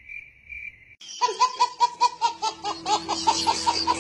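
Stock cricket-chirping sound effect, a steady high pulsing chirp about twice a second, the comic cue for an awkward empty silence. About a second in it cuts off and a burst of quick, rhythmic laughter starts, about six pulses a second, with a steady low musical note under it from about halfway through.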